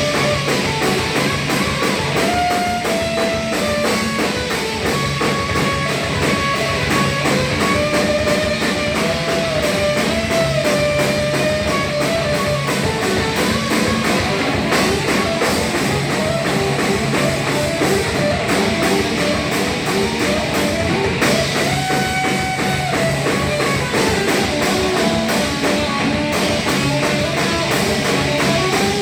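Hardcore band playing live: electric guitar, bass and drum kit at a steady loud level, with a guitar line moving over a driving drum beat.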